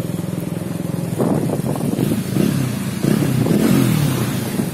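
Motorcycle engine running while riding, steady at first, then louder with its pitch rising and falling as the revs change from about a second in.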